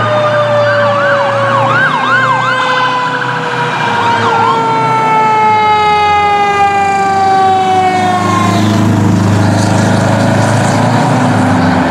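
Fire engine siren on a 1993 Pierce Lance pumper, with a long wail whose pitch slowly falls and bursts of fast up-and-down yelp in the first few seconds. In the second half the truck's diesel engine is heard as it passes and pulls away.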